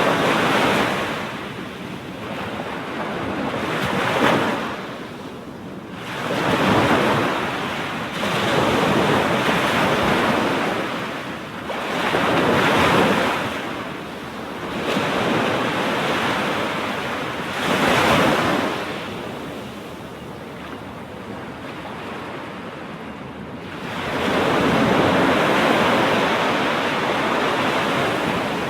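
Ocean surf breaking on a sandy beach, waves rolling in and washing back in a rhythm of swells every few seconds, with a lull a little past the middle before a larger wave near the end.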